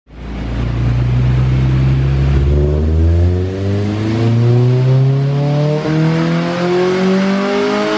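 Honda K24A2 2.4-litre four-cylinder engine in a Civic Si making a pull on a chassis dyno, its note rising steadily in pitch, with a heavy low rumble early on. On this pull the engine runs short of fuel and goes lean, with the injectors at about 92% duty cycle.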